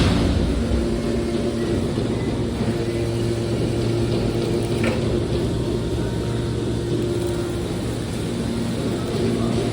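Hydraulic scrap steel baler running: a steady machine hum, with a knock at the start and another about five seconds in.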